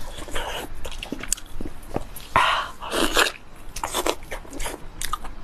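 Close-miked, wet, squelchy chewing and lip smacking of a soft, steaming-hot sheep brain dipped in chili sauce, in irregular bursts that are loudest a little past halfway.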